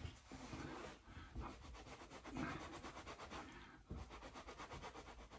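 Faint rubbing of a hand stroking over freshly shaved skin, with a few soft low knocks.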